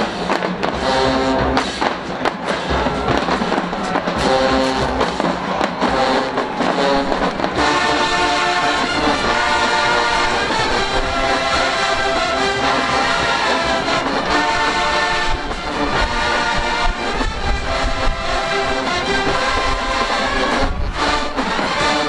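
Marching band of brass, sousaphones and drumline playing loudly. Drum strikes and short brass punches at first; about seven and a half seconds in, the full brass section takes up sustained chords over the drums.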